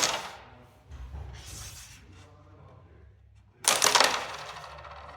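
Carrom striker flicked into the coins on a wooden carrom board, twice, each time a sharp clack followed by a brief clatter of pieces.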